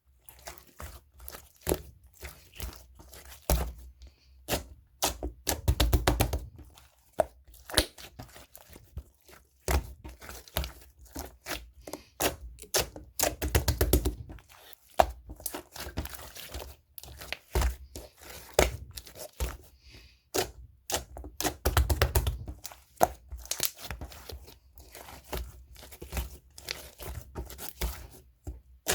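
Hands kneading, stretching and pressing a marbled macaron slime: a steady run of sticky crackling, tearing and small popping clicks, with heavier squishy presses about every eight seconds.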